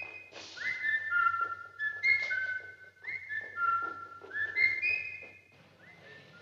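A person whistling a tune of short, stepping notes, each one ringing on in a long echo, with a few faint knocks underneath; the whistling stops near the end.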